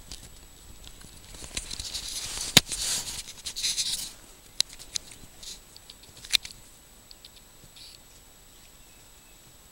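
Rustling close to the microphone for about two and a half seconds, with a sharp click in the middle of it and another about six seconds in.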